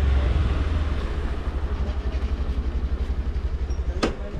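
A motor vehicle's engine running close by with an even low throb that fades toward the end. A single sharp click comes about four seconds in.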